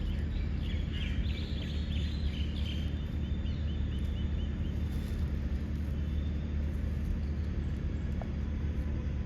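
Steady low rumble throughout, with small birds chirping over it in the first few seconds, ending in a quick run of about seven repeated high notes around three seconds in.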